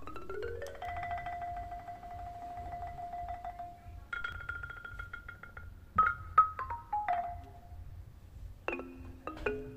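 Music: a marimba-like mallet melody. It slides up into a long held note, then steps down through struck notes, and a quicker run of repeated struck notes starts near the end.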